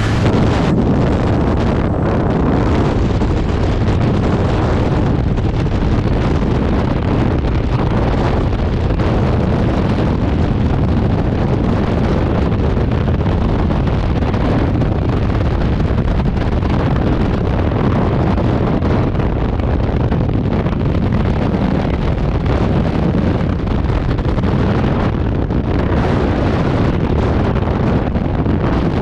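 Loud, steady rush of freefall wind buffeting the camera microphone.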